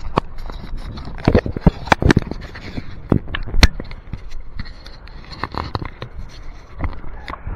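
A bike clattering as it is ridden: irregular sharp knocks and clicks with scraping, over a steady rushing noise.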